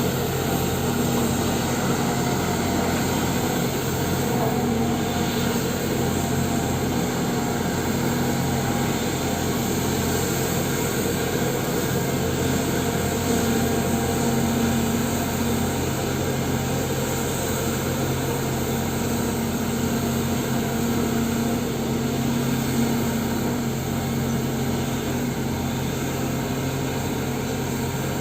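Excavator's diesel engine running steadily with a constant hum that swells a little now and then as it works.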